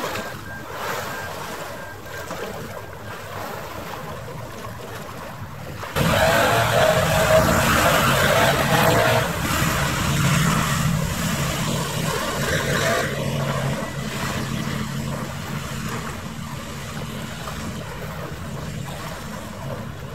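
Wind on the microphone over harbour water, then about six seconds in a sudden louder stretch: a catamaran ferry's steady low engine hum with a rushing wash of water, the rushing easing after about seven seconds while the hum carries on.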